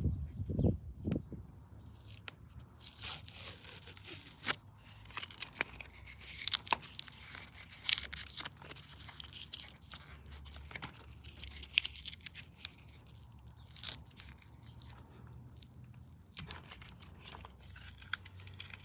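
Masking paper and tape being peeled off freshly painted metal and crumpled, in irregular crackling tears and rustles.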